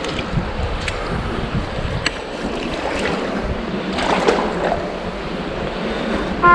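Steady rushing of a fast-flowing river, with wind on the microphone and a few light clicks.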